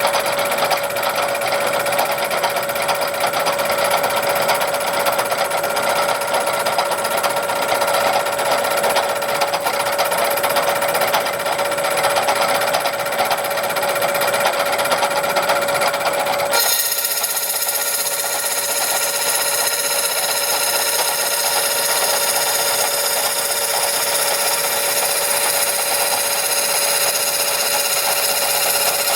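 A small machine running steadily with a constant whine over a rough mechanical noise. About 17 seconds in the sound changes abruptly to a brighter, hissier one.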